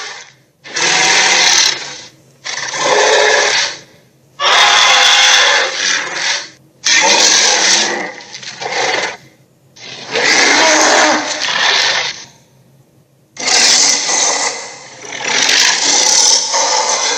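Western dragon sound effects: a string of about seven loud, rough, noisy roars, each one to two seconds long with short gaps between them.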